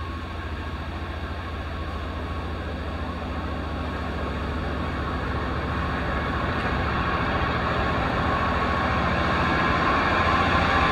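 Class 66 diesel locomotive approaching at the head of a container freight train, its engine drone and a steady high whine growing steadily louder.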